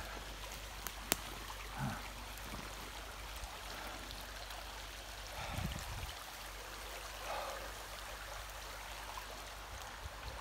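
Shallow stream running over stones, a steady babble of water. A sharp click comes about a second in, and a few dull low thumps about two seconds in and again near six seconds.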